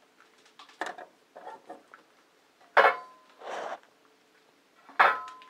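Metal clanks and rattles from a steel breaker box being handled. There are light knocks about a second in, then two loud clanks with a brief metallic ring near the three- and five-second marks, with a short rattle after the first.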